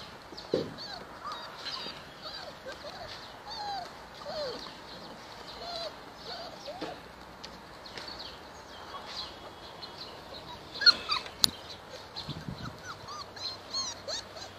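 A litter of young puppies whimpering and squeaking, many short high cries overlapping one another. A couple of sharp knocks sound about eleven seconds in.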